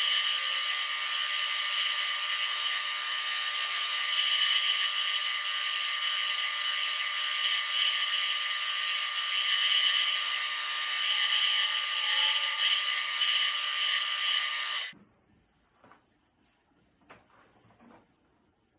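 Wood lathe running with a steady high whine while sandpaper is held against the spinning wooden handle. The sound stops suddenly about fifteen seconds in, leaving only faint handling rustles.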